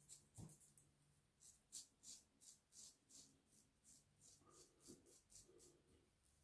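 Shavette straight razor with a Feather Pro Guard blade scraping stubble on the neck in short, faint strokes, about two or three a second.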